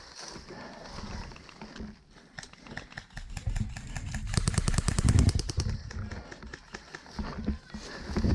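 Airsoft gun firing a rapid full-auto burst of fast, evenly spaced shots about four seconds in, with a few scattered shots before it. A low rumbling noise runs underneath.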